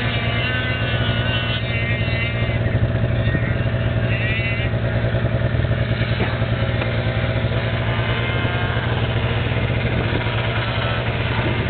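Snowmobile engine running steadily and close by, with a fast, even throb.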